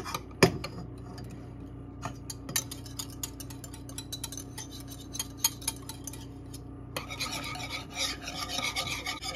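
Wire whisk clicking and scraping against a metal saucepan, whisking egg yolks into melted butter and lemon juice for hollandaise. A single sharp knock about half a second in. The whisking starts as scattered clicks and turns into fast, continuous scraping about seven seconds in.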